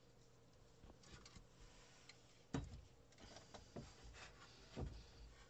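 Light knocks, taps and rattles of hand tools and a reel of solder being handled and set down on a wooden baseboard shelf, with two louder thumps about two and a half and five seconds in.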